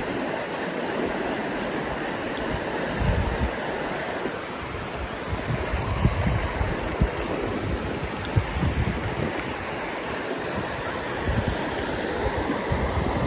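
Mountain stream rushing over rocks and rapids in a steady roar of water, with wind buffeting the microphone in gusts now and then.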